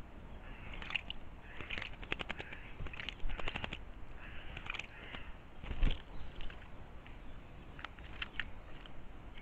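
Harsh, rasping bird calls, several in the first few seconds and fainter ones later, with a dull thump about six seconds in.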